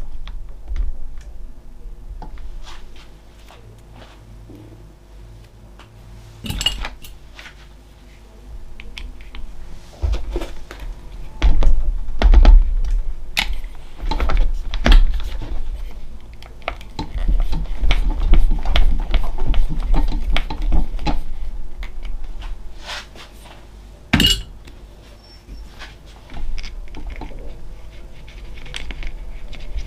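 Irregular clicks, clinks and knocks of small parts and hand tools being handled while an Arrma Kraton 4S V2 RC truck is reassembled on a workbench. The sounds are busiest in the middle, with sharp single clicks about 7 and 24 seconds in.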